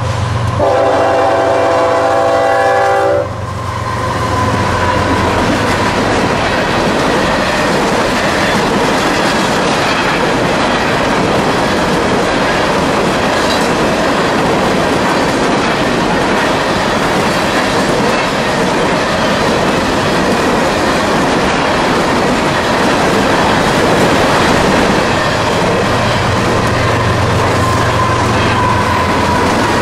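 A CSX freight locomotive's multi-note horn sounds for about three seconds. Then a long train of empty coal hoppers rolls past with a steady rumble and clatter of wheels on rail. A diesel locomotive's low engine hum rises near the end.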